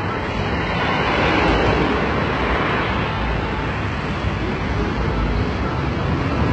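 Road traffic on a city street: cars driving past as a steady wash of engine and tyre noise, swelling as one passes close about a second in.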